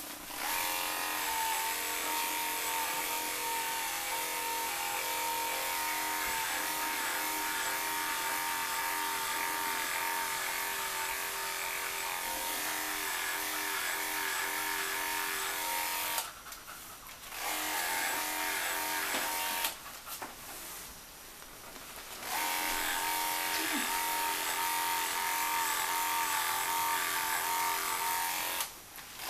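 Cordless electric pet hair clipper buzzing steadily as it clips a dog's coat. It is switched off and on again twice in the second half.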